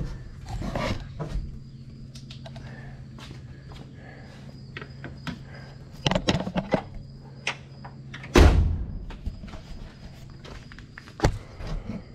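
Handling noises as the camera is carried and set down: scattered clicks and knocks over a steady low hum, and one loud thump about eight seconds in, where the hum cuts off.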